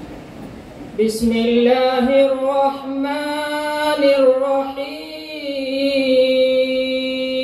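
A man's voice chanting in long, held, slightly wavering notes with slow glides between them, starting about a second in.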